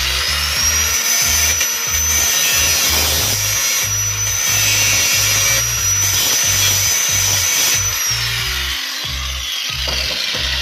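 Electric angle grinder spinning up with a high whine and grinding the edge of a sheet-metal part, then winding down about eight seconds in. Background music with a steady low beat runs underneath.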